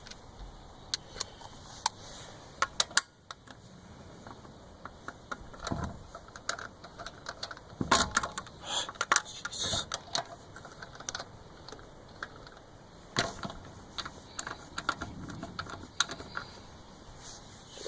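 Scattered metal clicks and clinks of lug nuts and tools being handled, busiest in the middle, with no motor running.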